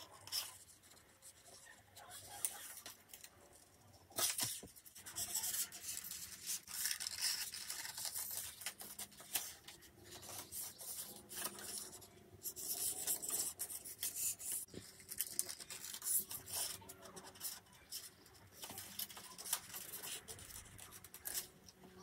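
Scissors cutting through sheets of drawing paper in irregular snips and slides, with the paper rustling as it is turned and handled.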